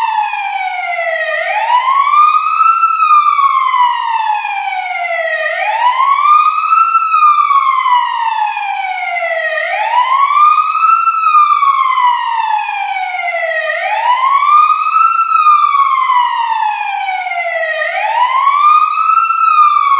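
Siren wailing in a steady repeating cycle: the pitch rises quickly, then falls slowly, about once every four seconds.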